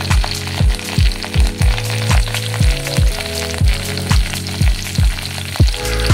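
Oil sizzling in a pan as crushed garlic fries with curry leaves, green chillies and chana dal, under background music with a steady beat of about two low drum thuds a second.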